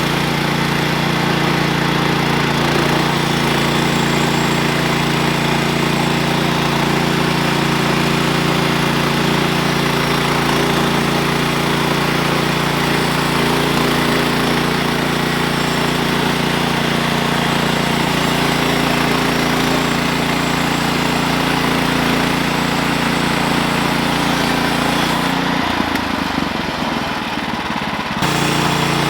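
Portable bandsaw sawmill's small gas engine running steadily at a constant pitch. For a couple of seconds near the end the sound briefly changes, then the same steady running resumes.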